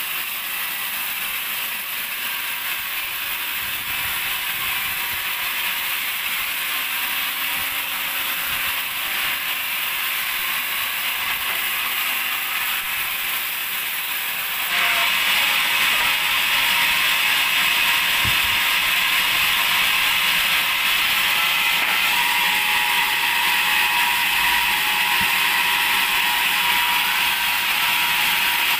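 Band sawmill running and sawing a teak log, a steady harsh mechanical noise from blade and carriage that steps up louder about halfway through.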